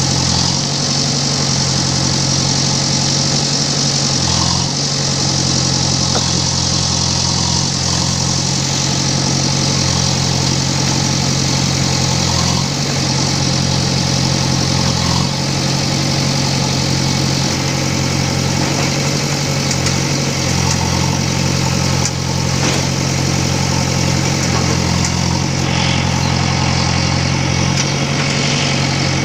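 JCB digger's diesel engine running steadily, with a few faint knocks over it.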